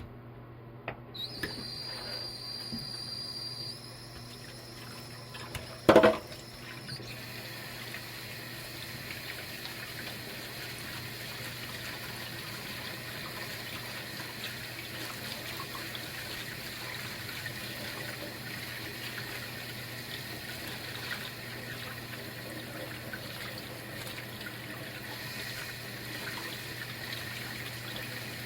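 Water running steadily from a tap, thin and whistling for the first few seconds and then a fuller, even flow. There is one sharp knock about six seconds in, and a steady low hum underneath.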